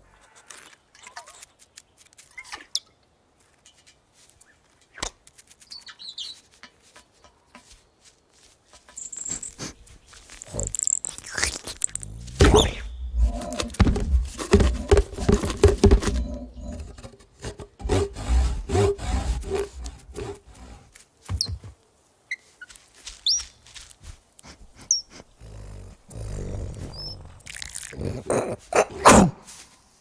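Cartoon foley of forest animals: scattered rustles and clicks, then a long, loud stretch of snuffling, growl-like fox noises over a steady low tone, and a few short, high, rising chirps from a small bird near the end.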